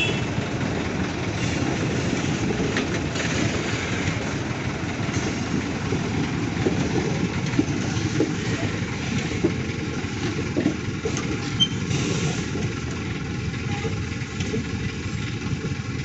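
Indian Railways train running, a steady low rumble with scattered clicks and knocks throughout.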